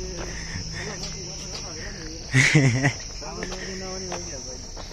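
Steady high-pitched chorus of insects. A brief louder voice sounds about halfway through, with fainter voices around it.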